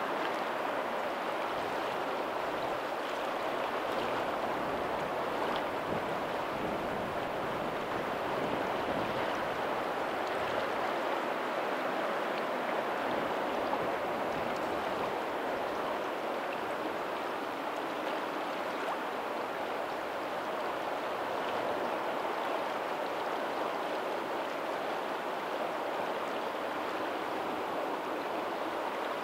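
Steady, even rush of water from a lagoon's tidal outflow running into the sea.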